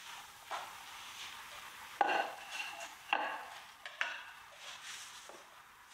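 Crockery knocking and clinking: a sharp knock with a brief ring about two seconds in, another a second later and a lighter one near four seconds, over a faint steady hiss.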